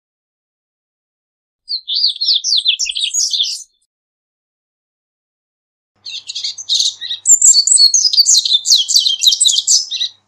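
Double-collared seedeater (corbatita) singing: a short phrase of fast, high twittering notes about two seconds in, then a longer, louder phrase of rapid trills from about six seconds.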